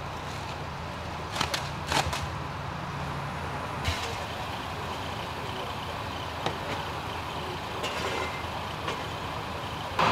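Vehicle engine idling steadily, a low hum, with a few sharp clicks and knocks about one and a half, two and four seconds in.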